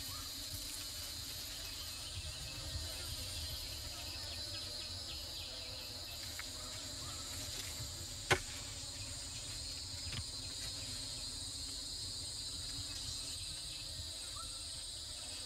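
Steady chorus of tropical forest insects calling without a break, with one sharp click about halfway through.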